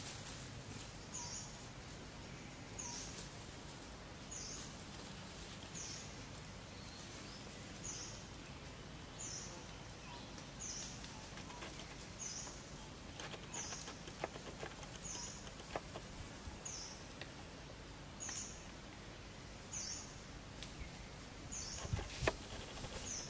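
A short, high-pitched animal chirp repeating evenly about every second and a half over steady outdoor background noise. A few sharp crackles come near the end, the loudest of them near the close, like movement in dry leaf litter.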